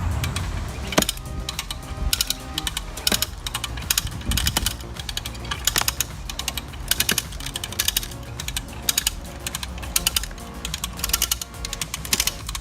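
Repeated bursts of rapid ratcheting mechanical clicks, roughly one burst a second, over faint background music.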